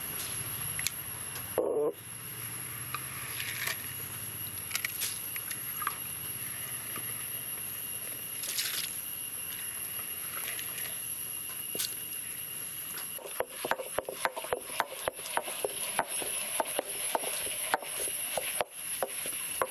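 Soaked jowar grains being dropped by hand into a stone wet grinder, with a few scattered clicks. About two-thirds of the way through, the hand-turned grinding stone starts rolling over the grains, a dense run of irregular clicks and crunches as they are crushed against the stone basin.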